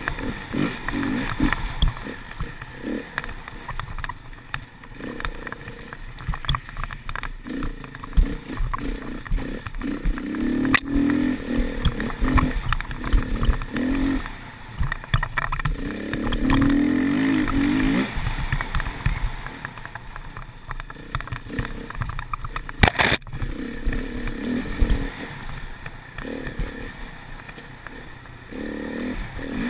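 Dirt bike engine ridden hard along a bumpy trail, the revs rising and falling again and again, with wind on the microphone and knocks from the bumps. One sharp knock about three-quarters of the way through.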